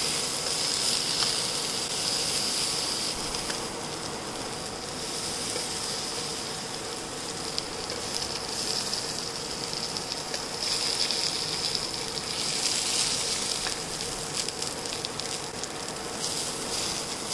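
Vegetable slices sizzling in hot olive oil in a non-stick frying pan, a steady hiss that swells and eases, with a few light clicks of metal tongs against the pan.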